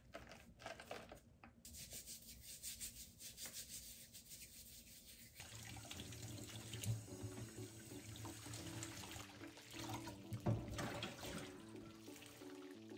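Tap water running into a stainless steel sink while lemons are rubbed and rinsed under the stream.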